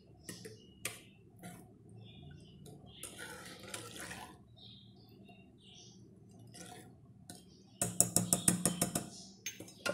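Steel spoon stirring milk, sugar and vermicelli in an aluminium pressure cooker: soft sloshing and scraping with occasional clinks against the pot. Near the end comes a quick, louder run of metal clinks and scrapes, lasting about a second and a half.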